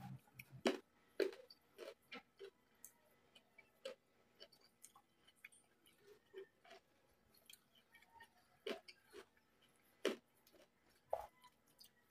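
Close-miked chewing of crispy pata kare-kare with rice and vegetables: irregular crisp crunches and wet mouth clicks. The loudest come just under a second in and again around ten seconds in.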